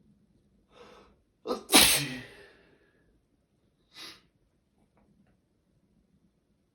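A person sneezes once, loudly, about a second and a half in, with a quick intake of breath just before it. A short breath follows near four seconds. It is part of a sneezing fit after a shower.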